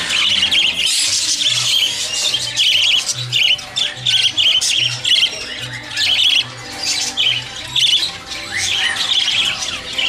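Many caged small parrots chirping and squawking together, with sharp high chirps coming about twice a second.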